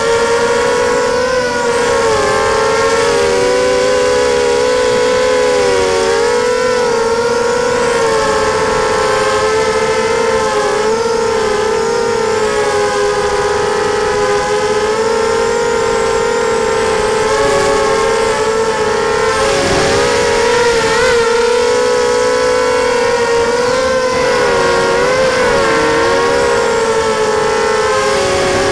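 FPV racing quadcopter's motors and propellers whining, heard from its onboard camera: several close pitches rising and falling together with the throttle, dipping sharply about twenty seconds in and again near twenty-six seconds.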